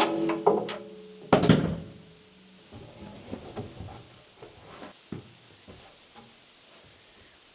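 A cordless drill driving screws into lumber in two short runs at the start, then scattered light knocks and thunks of tools and wood being handled.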